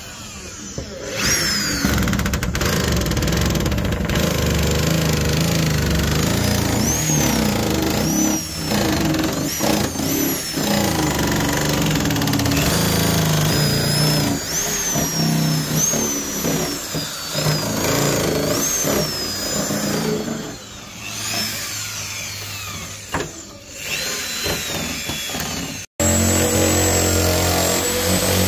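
A motor running steadily with short high whines that rise and fall. The sound changes abruptly near the end to a steadier, more even run.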